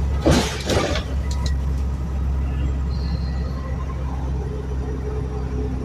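Onboard an Alexander Dennis Enviro 400 Dennis Trident 2 double-decker bus with a ZF automatic gearbox, under way: steady low engine and drivetrain hum with road rumble. A short loud clatter about half a second in, and a low steady tone comes in near the end.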